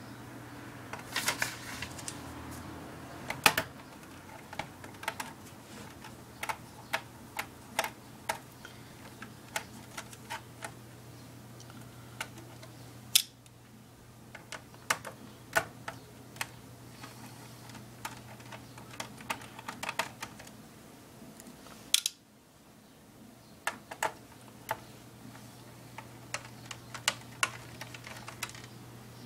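Irregular light clicks and taps of small screws, a screwdriver and plastic laptop case parts being handled during disassembly, with a few sharper clicks, over a steady low hum.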